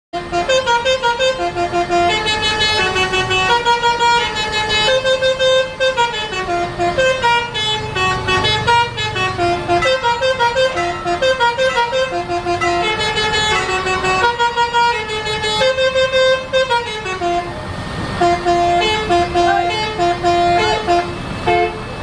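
Basuri telolet horn on a tour bus playing a melody: a quick run of short notes stepping up and down, with a few sliding notes.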